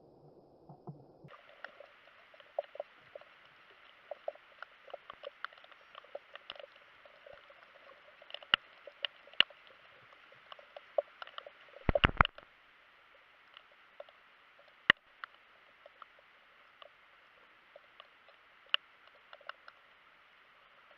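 Underwater recording: a faint steady hiss with scattered sharp clicks and crackles, and a quick flurry of louder clicks about twelve seconds in.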